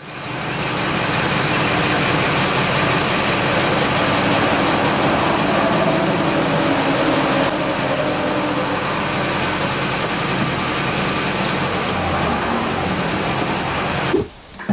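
Gasoline being dispensed from a farm fuel tank through a metered hose nozzle into a plastic gas can: a steady rush of fuel flow with a faint hum under it, cutting off sharply near the end.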